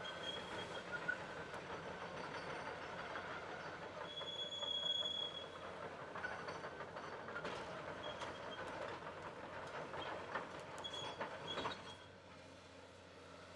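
Volvo EC460C crawler excavator travelling on its steel tracks over pavement: diesel engine running under a steady clatter of track links, with scattered clanks and short high squeals. The noise drops off sharply near the end.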